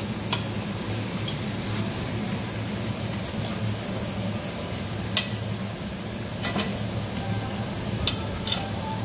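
Pork belly sizzling on a Korean barbecue tabletop grill: a steady frying hiss over a low steady hum, with a few sharp clicks scattered through.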